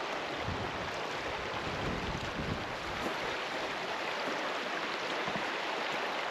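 Steady rush of river water over rocks, an even, unbroken sound.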